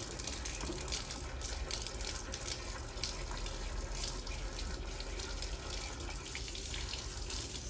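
Water running steadily from a tap, with small irregular splashes as something is washed under it.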